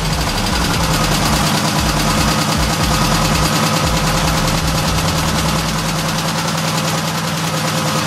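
1972 VW Super Beetle's air-cooled flat-four engine idling steadily on its own, just started after sitting a long time on old, treated fuel.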